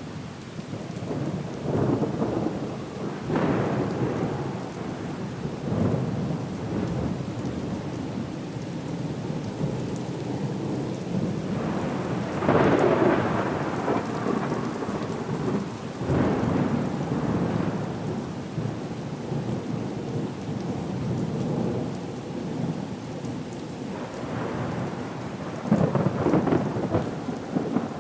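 A thunderstorm with steady rain and repeated rolls of thunder. The loudest rumble swells up about halfway through, and another comes near the end.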